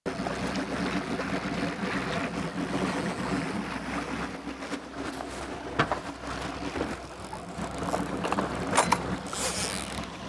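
Trolling boat's engine running steadily, with water noise around the hull. A sharp knock sounds a little past halfway and two more near the end.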